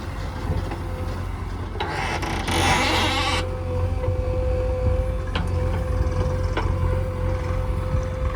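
Heavy diesel earth-moving machinery running steadily, with a low rumble and a steady whine, and a loud hiss for about a second and a half about two seconds in.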